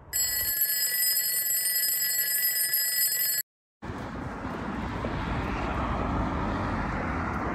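A steady high-pitched electronic tone, several pitches sounding at once, holds for about three seconds and cuts off abruptly. After a brief gap of silence comes a steady rush of road traffic noise.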